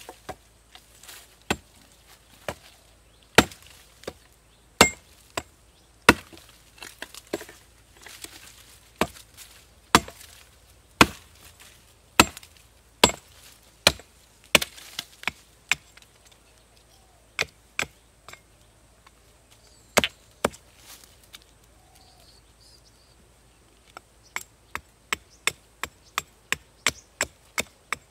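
Hatchet chopping a wooden pole resting on a log: sharp single strikes about once a second, then after a pause a quick run of lighter chops about three a second near the end.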